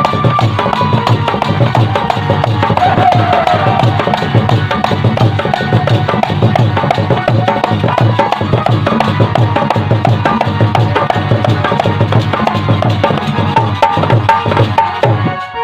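Instrumental stretch of Indian folk music: a fast, steady hand-drum rhythm with a melody line playing over it.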